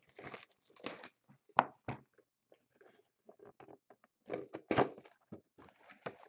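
Trading cards and their foil pack wrappers being handled: irregular rustles, crinkles and small clicks, with one sharp click about one and a half seconds in and a louder run of rustling around four to five seconds in.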